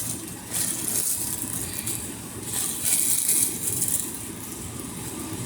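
Plastic packaging crinkling and rustling as a swimsuit is handled, in two main bursts about half a second and about three seconds in.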